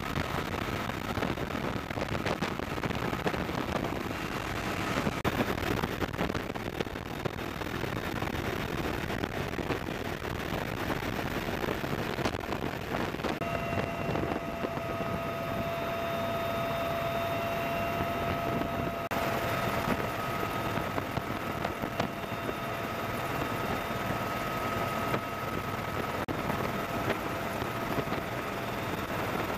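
Military helicopter rotor and turbine noise with wind rush, heard from aboard a helicopter in flight. A steady whine joins about halfway through.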